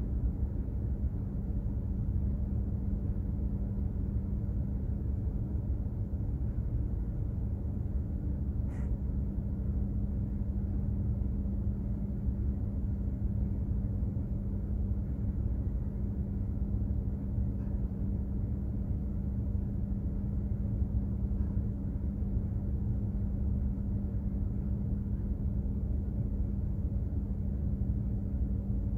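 Steady low rumble of a container ship's engine and machinery heard from aboard, with a constant unchanging hum.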